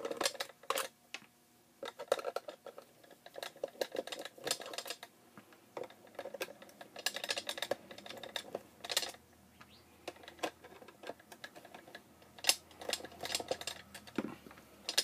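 Hand screwdriver backing small screws out of a plastic light housing, with irregular clicks and rattles of the driver and plastic and the small metal screws set down on the desk one after another.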